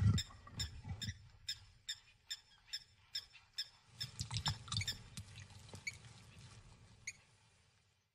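Leopard chewing on a freshly killed bird: a run of sharp crunches about three a second with soft low thumps under them, thinning out and fading away near the end.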